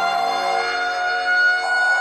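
Music: a song intro of sustained electronic tones, one of them gliding slowly upward like a siren.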